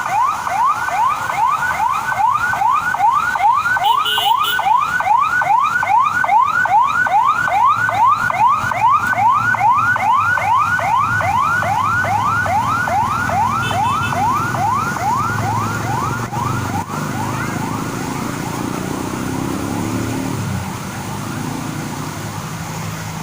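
Emergency vehicle siren sounding in quick rising sweeps, about three a second, each dropping back before the next; it fades out near the end. A low rumble runs under it in the second half.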